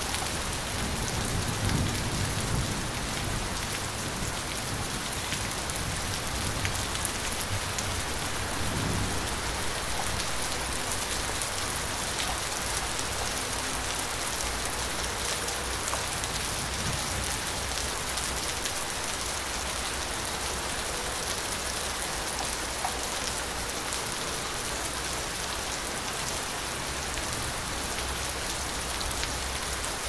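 Light rain falling steadily, with low thunder rumbling about two seconds in and again briefly about nine seconds in.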